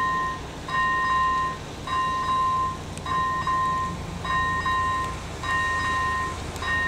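AŽD ZV01 electronic level-crossing bell sounding its warning: a two-tone chime, each ring about three-quarters of a second with a short gap, repeating roughly once a second, signalling that the crossing is closed for an approaching train. A low rumble builds beneath it in the second half.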